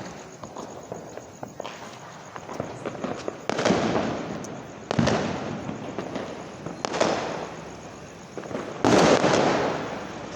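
Firecrackers going off: four loud bangs about two seconds apart, each followed by a long echoing tail, over scattered small crackles and pops.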